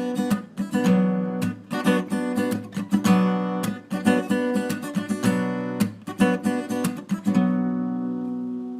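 Guitar strummed and picked in an instrumental passage between sung lines, closing on a chord left ringing and fading over the last second and a half.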